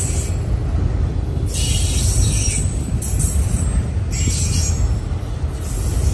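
Freight train of autorack cars rolling past: a steady low rumble of steel wheels on rail. A high-pitched hissing screech breaks in twice, about a second and a half in and again near four seconds.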